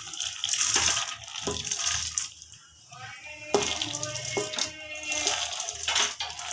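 Mixed lentils (chana, moong and masoor dal) poured and scraped by hand from a steel bowl into a pressure cooker, pattering and splashing into a little water at its bottom, with a few sharp knocks of metal on metal.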